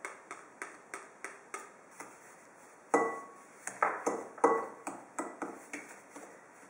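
A spatula knocking and scraping against a mixing bowl while stirring sugar and lemon zest: light, evenly spaced taps, about three a second, turning into harder knocks about three seconds in, the bowl ringing briefly after the loudest ones.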